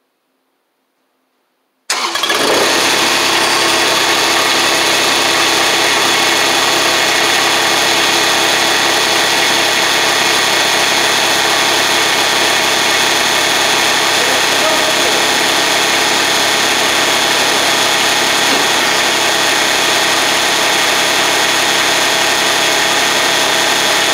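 Kubota RTV-X1100C's three-cylinder diesel engine cold-starting: silence for about two seconds, then it fires abruptly and settles straight into a steady idle.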